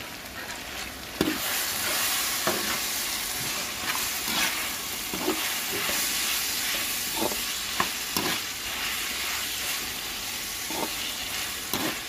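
Fried chicken pieces stir-frying with onion, garlic and green chilli in a hot metal pan: steady sizzling, louder from about a second in. A slotted metal spatula scrapes and knocks against the pan now and then as the pieces are turned.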